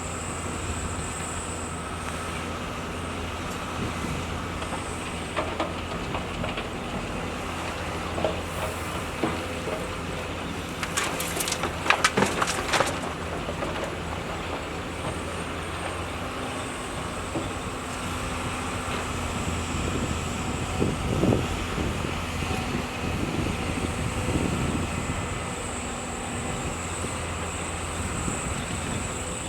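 Heavy diesel excavator running steadily as it works, with a short burst of clattering knocks about halfway through.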